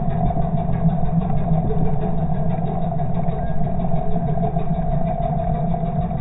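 Outboard motor running at a steady slow speed in gear, heard underwater, with its propeller turning slowly: a constant engine hum with a steady mid-pitched tone that does not change.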